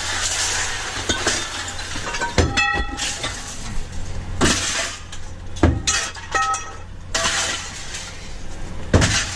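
Pieces of heavy scrap metal being thrown down onto a heap: a string of clanks and crashes, two of them ringing on briefly with a metallic tone, over a steady low hum.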